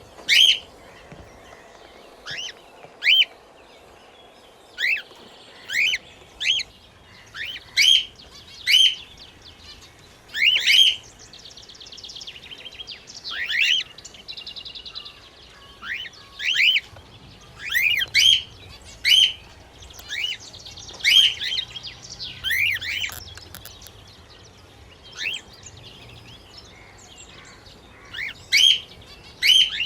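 Pet cockatiel and budgies calling: loud, short rising chirps repeated at irregular intervals, often in quick pairs, over stretches of softer buzzy chatter.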